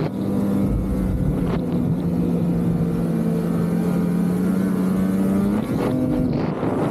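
Polaris 850 Assault snowmobile's two-stroke twin engine running under way at a steady note that sags slightly. Near the end the note breaks and climbs again as the throttle changes.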